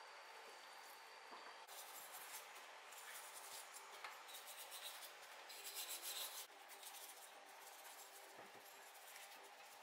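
Small brush scrubbing a Homelite chainsaw's finned cylinder and crankcase, soaked in gasoline, in irregular short strokes. Faint, loudest about six seconds in, then quieter.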